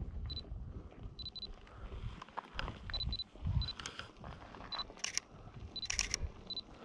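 Canon mirrorless camera sounding its short, high autofocus-confirmation beeps about ten times, often in quick pairs. Its shutter fires in short bursts of clicks about five and six seconds in.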